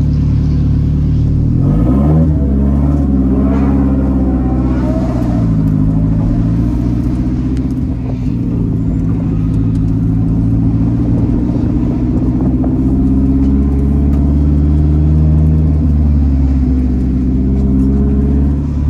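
Car engine running hard and revving, its pitch climbing about two seconds in, dropping around five seconds, holding steady, climbing again past the middle and falling near the end, as the throttle is worked.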